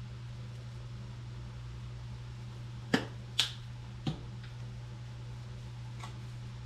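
Two sharp clicks and then a click with a low knock, about three to four seconds in, from spice jars being handled: plastic caps snapped shut and a jar set down. A faint click follows near the end, over a steady low hum.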